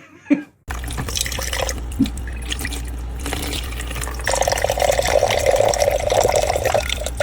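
Water running or splashing over a steady low hum, growing heavier for a couple of seconds in the second half.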